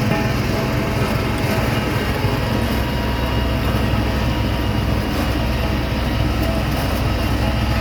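Vibratory road roller running steadily, its drum vibrating as it compacts hardcore: a loud, unbroken heavy machine rumble.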